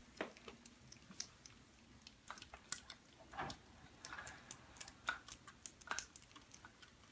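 Kittens eating dry kibble: faint, irregular small crunches and clicks.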